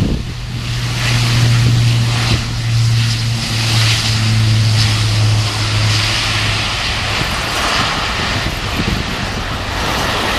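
Airbus A400M turboprop engines with their eight-bladed propellers running: a strong, steady low propeller drone over a rushing engine noise. The drone fades out about seven seconds in while the rushing noise carries on.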